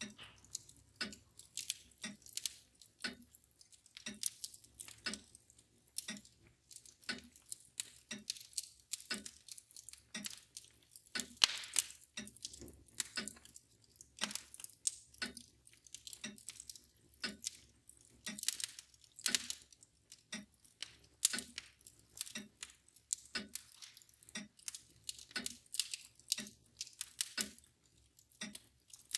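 Wood fire crackling with irregular sharp pops, over the steady ticking of a mantel clock at about one tick a second.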